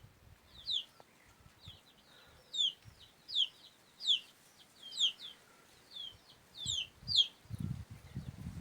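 A small bird calling over and over in short, high, downward-slurred notes, about one or two a second, with low rumbling sounds near the end.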